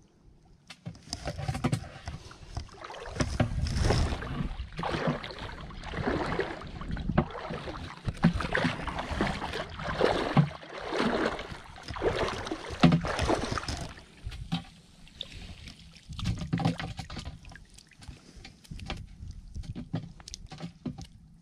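Shallow water splashing and sloshing in irregular bursts as a long-handled scoop net is dipped and swept through it. The splashing is loudest over the first two-thirds, then thins to softer splashes and knocks.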